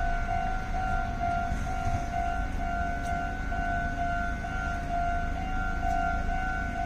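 Japanese railway level-crossing alarm sounding: one electronic tone repeating evenly at about two to three dings a second, the warning that a train is coming.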